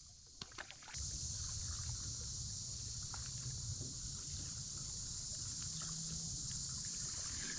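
Steady high-pitched chorus of evening insects over a low rumble, with a few faint clicks about half a second in.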